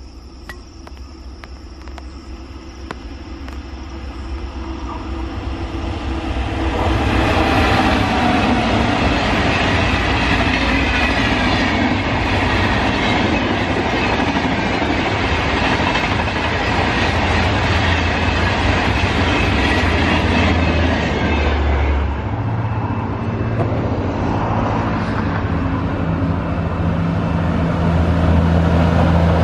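Indian express passenger train passing close at speed on electrified track: a rumble that swells over the first several seconds into a loud, steady rush of wheels on rail joints, with clickety-clack. About 22 seconds in it gives way to a lower, steadier hum of another electric-hauled train running past.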